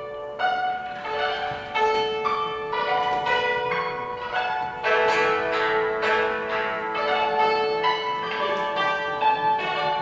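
Yangqin (Chinese hammered dulcimer) played solo: light hammers striking its metal strings in a quick melody of sharply struck notes that ring on and overlap.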